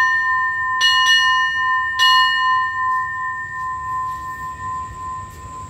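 Railway station platform bell struck by hand twice, about one and two seconds in, each strike ringing on in a clear tone that fades slowly; the bell is rung to announce an arriving train.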